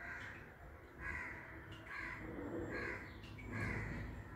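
A crow cawing repeatedly, about five harsh calls roughly a second apart, over a steady low background hum.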